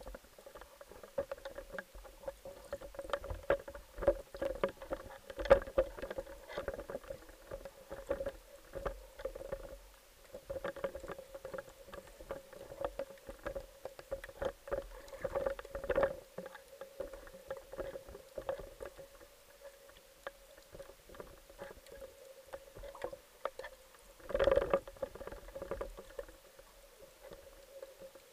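Underwater sound through a camera: a steady hum with irregular clicks and crackles throughout, and a loud rushing burst about 24 seconds in.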